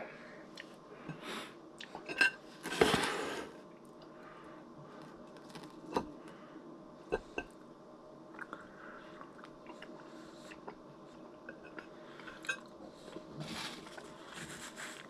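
Barbecue pork ribs being eaten: scattered clinks and knocks of dishes and cutlery mixed with chewing. The loudest sound is a short noisy burst about three seconds in.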